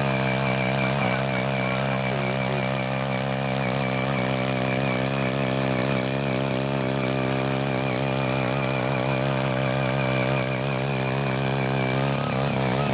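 Small petrol engine of a CY80 mini garden tiller running steadily under load while its rotary tines dig through untilled soil, its pitch wavering slightly.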